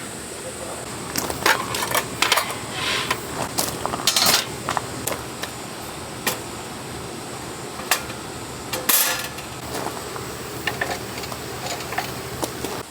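Irregular clicks, knocks and short rustles of objects being handled, over a faint steady high-pitched hum.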